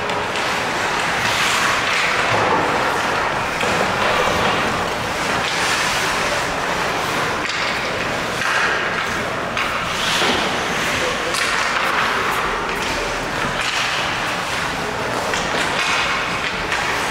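Ice hockey play: skates scraping and carving on the ice, with a few sharp clacks of sticks and puck against the boards, over indistinct shouting and chatter in the rink.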